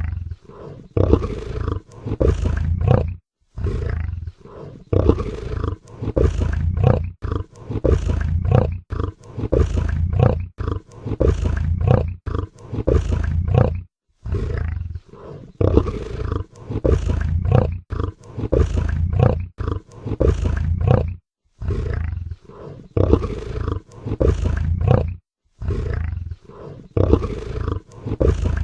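Big cat roaring and grunting in runs of repeated calls, about one a second, broken by a few short silences.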